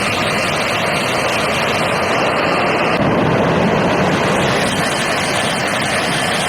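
Loud, steady rushing noise with no pitch to it, starting and cutting off abruptly.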